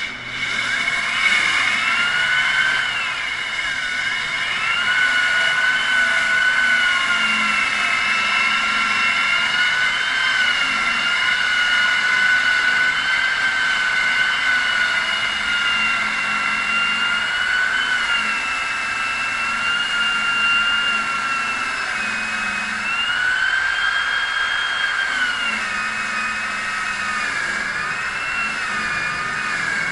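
A machine's motor running with a high whine that drifts slowly up and down in pitch, as if its load keeps changing.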